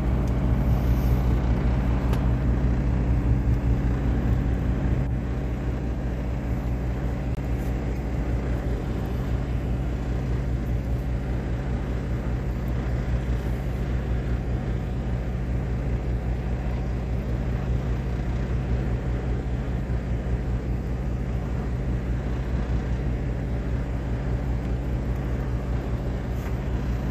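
Boat engine running steadily, a low even drone that eases slightly about five seconds in.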